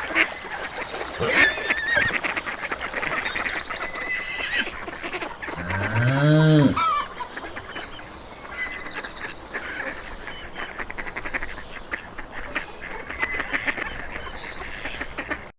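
Barn ambience with birds calling, and a cow mooing once about six seconds in: a single loud moo that rises and then falls in pitch.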